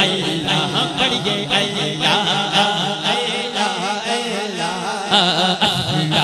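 A man singing a devotional zikr chant through a microphone and sound system, in long, bending, drawn-out notes.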